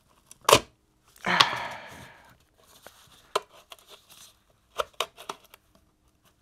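Steel rifle magazine being prised apart by hand: one loud sharp click about half a second in, a short scraping rasp a second later, then a few lighter clicks of metal parts.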